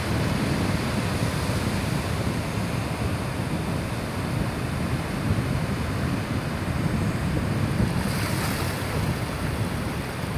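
Sea surf breaking and washing up a flat sandy beach, with heavy wind rumble on the microphone.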